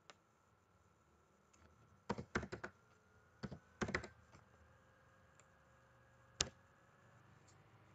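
Faint computer keyboard typing: two quick runs of four or five keystrokes each, then a single louder keystroke about two and a half seconds later.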